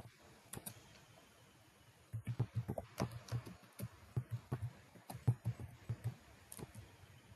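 Computer keyboard typing: irregular key clicks, a few at first, then a quick run of keystrokes from about two seconds in.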